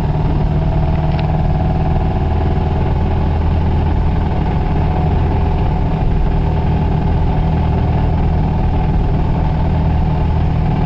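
Toyota Celica ST's four-cylinder engine running steadily at an even speed, with a rod bearing that is failing badly.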